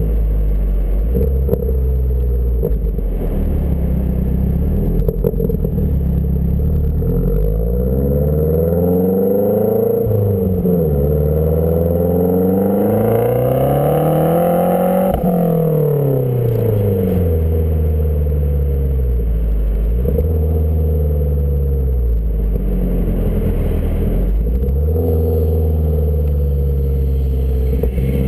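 2012 Mazdaspeed3's turbocharged 2.3-litre four-cylinder engine running through an aftermarket turbo-back exhaust with a CP-E downpipe and high-flow cat. It runs steadily at first, then the revs climb, dip briefly, climb again to a peak about halfway through and fall back slowly, with a smaller rise and fall near the end.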